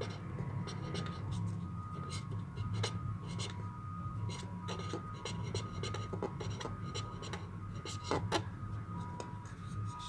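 Red pen scratching across paper in short writing strokes, with a couple of sharper knocks about eight seconds in.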